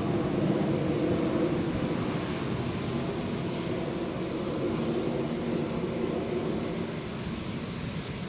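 Airbus A320 airliner's jet engines, a steady low rumble that eases slightly in the second half.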